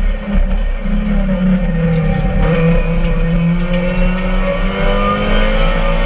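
Peugeot 206 RC's 2.0-litre four-cylinder engine running hard at high revs under full acceleration, heard inside the stripped, roll-caged cabin along with road noise. Its pitch dips slightly about a second in, then climbs steadily.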